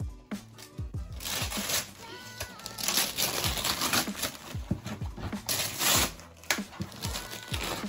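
Tissue paper and a paper gift bag rustling and crinkling as a present is pulled out and unwrapped, in several loud spells. Background music with a steady beat plays underneath.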